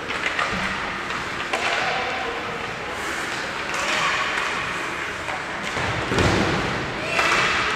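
Ice hockey play in a rink: skates scraping on the ice, sticks and puck clacking, and players shouting, all echoing in a large hall. A heavy low thud about six seconds in is the loudest sound.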